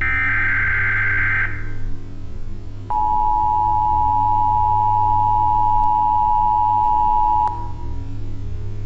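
Emergency Alert System transmission: the last SAME header data burst, a shrill buzzing chirp, ends about a second and a half in. After a short gap comes the two-tone attention signal, a steady harsh dual-pitched tone lasting about four and a half seconds that cuts off abruptly. A low hum runs underneath.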